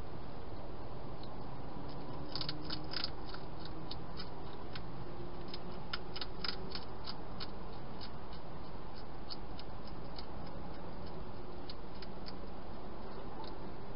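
Wild hedgehog crunching dry food: sharp, irregular clicks in quick clusters, starting about two seconds in, over a steady hiss.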